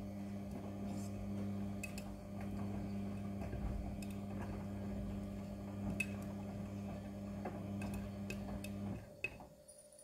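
Midea front-loading washing machine in its wash cycle: the motor hums steadily as the drum tumbles wet clothes, with occasional light ticks. About nine seconds in, the drum stops and the hum cuts off.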